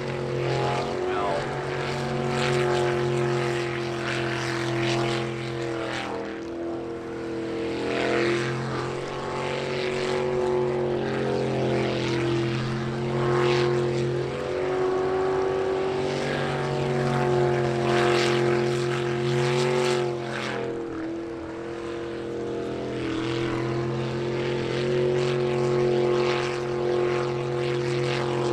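Jet sprint boat's racing engine running hard, its note dropping and climbing again several times as the throttle eases and reopens through the course's turns.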